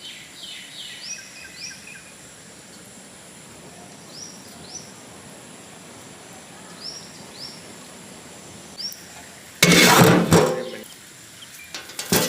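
Birds calling in short high chirps, mostly in pairs a fraction of a second apart, repeated several times over a quiet outdoor background. About ten seconds in, a loud noisy burst lasts about a second.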